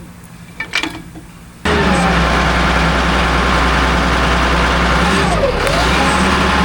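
Toyota shovel's engine running steadily. It comes in abruptly a little over a second and a half in, after a few faint clicks, and a whine over it dips and rises in pitch about two thirds of the way through.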